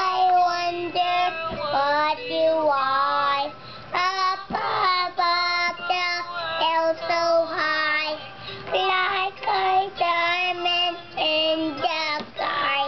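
A child singing a song unaccompanied, holding notes and stepping between them with short breaths in between.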